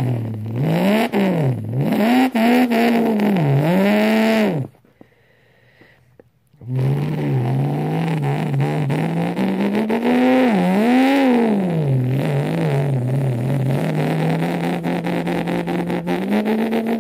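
A person imitating a car engine with his voice: an engine note whose pitch rises and falls like revving. It cuts off about five seconds in, then starts again after a two-second gap and runs on with more revs, settling onto a higher held note near the end.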